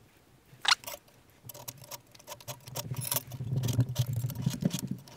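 Steel calipers clicking and scratching on sheet metal while a bend line is marked out: one sharp click, then a run of quick ticks and scrapes from scribing with the caliper jaw.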